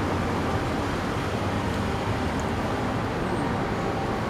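Steady background rumble and hum with no distinct events, the ambient noise of the place where the food is being eaten.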